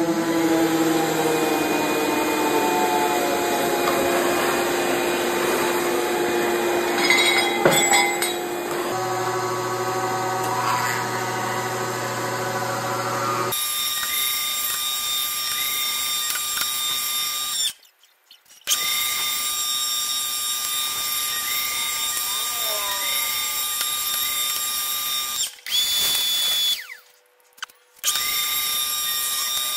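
Vertical milling machine running, its end mill cutting the knife's steel tang down flush with the bolster: a steady machine whine with a cutting rasp. The sound cuts out abruptly twice in the second half.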